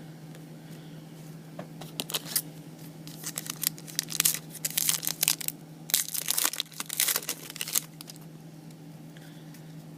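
Foil wrapper of a trading-card pack being torn open and crinkled, a run of irregular crackling rustles from about a second and a half in until near the end, over a steady low hum.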